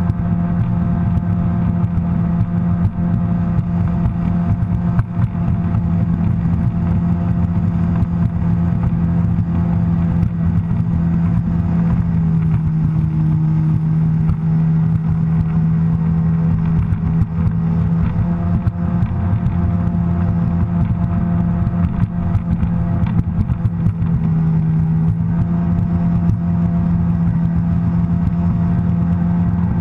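Sea-Doo personal watercraft engine and jet drive running steadily at cruising speed, about 30–35 mph, with its note shifting slightly a few times. Small knocks from the hull running over the chop.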